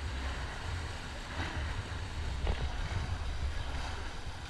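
Low, uneven wind rumble on the microphone over open-water ambience from a boat, with one sharp knock about two and a half seconds in.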